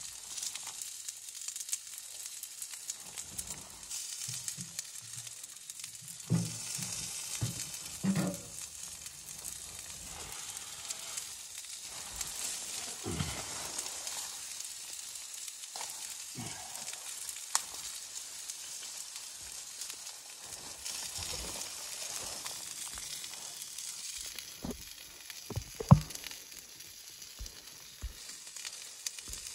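Firewood knocking and clunking against a small steel camp wood stove as it is loaded, over a steady hiss. A single sharp crack near the end is the loudest sound.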